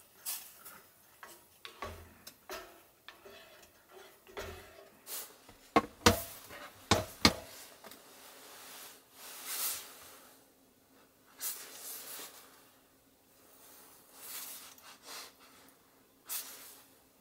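A metal spoon stirring and knocking against a small stainless steel Sierra cup of soup on a cassette gas stove, with a cluster of sharp clinks about halfway through. After that come a few brief, soft swishes.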